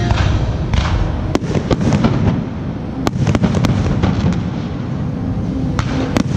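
Aerial firework shells bursting one after another: sharp cracks over a dense, continuous low din of booms.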